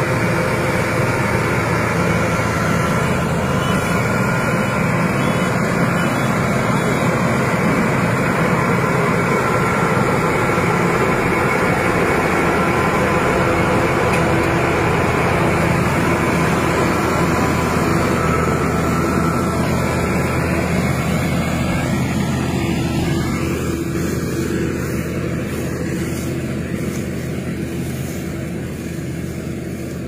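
Zoomlion mini combine harvester's diesel engine and threshing machinery running steadily under load as it cuts rice. The sound grows gradually fainter in the last third.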